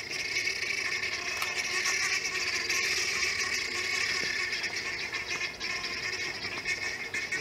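A flock of helmeted guineafowl calling, a continuous chorus of harsh, rapid cackling typical of the alarm they raise at a predator.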